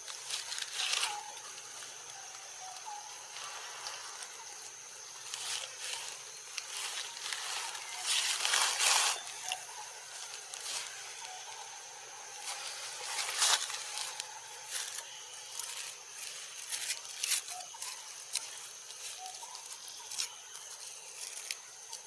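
Tropical forest ambience: a steady high-pitched insect drone, broken by short bursts of rustling noise, the longest about eight seconds in.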